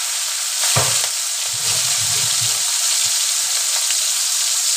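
Prawns frying in hot oil in a kadai: a steady, loud sizzle, with a single knock about a second in.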